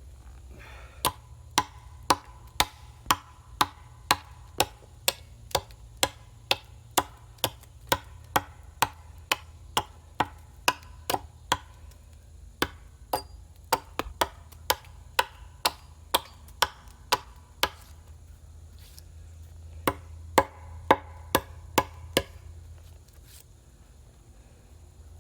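A hand tool striking wood in steady, sharp blows about two a second, then a pause and a short run of about six more strikes.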